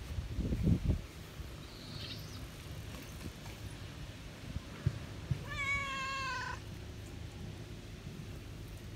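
A cat meows once, a wavering call of about a second, a little past halfway through; a few low bumps and rustles come in the first second.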